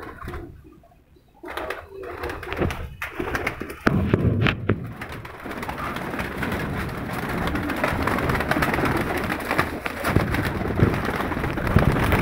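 Domestic pigeons in a loft flapping and fluttering, a dense clatter of wingbeats that builds from about four seconds in, with pigeons cooing.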